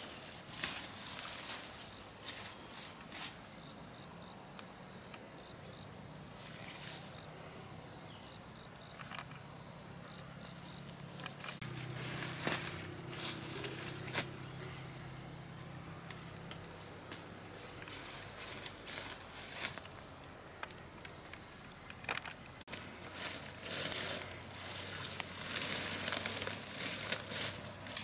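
Steady, high-pitched insect drone held on one pitch, with footsteps and rustling as a person pushes through leafy undergrowth. The rustling comes in scattered bursts and gets busier over the last few seconds.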